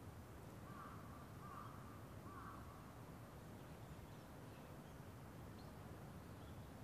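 A crow cawing three times in quick succession about a second in, over a quiet low background hum, with a few faint high bird chirps later on.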